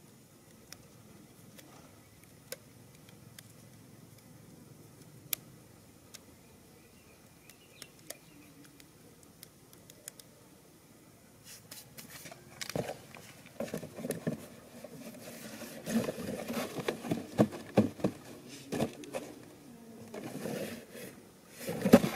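Faint hush with a few isolated clicks, then from about halfway a dense run of rustling, scraping and knocking as hands work with a wooden stick frame and a cardboard box. The loudest knock comes near the end, as the box is grabbed.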